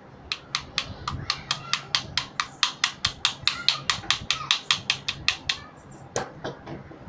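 An animal calling in a rapid, even series of short, sharp calls, about five a second, that stops about two thirds of the way through, followed by a few scattered calls.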